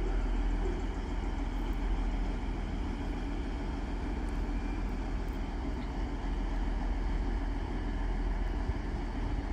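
Diesel multiple unit, DB Class 612, with its engines running steadily across the tracks: a continuous low rumble.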